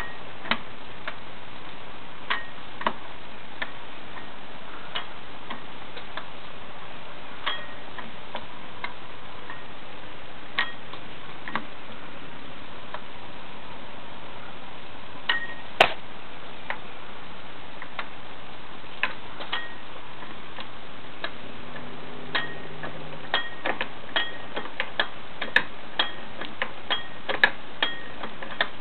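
Irregular light clicks and small metallic ticks over a steady hiss, coming more often in the last several seconds.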